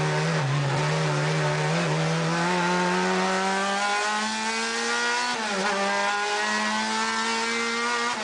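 Renault Clio 2 Superturismo race car engine under hard acceleration, heard from inside the cockpit. The pitch climbs steadily, dips briefly a little past halfway, then climbs again.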